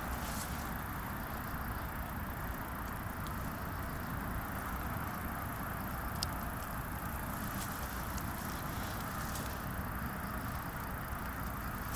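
Steady low outdoor background rumble with a few faint ticks.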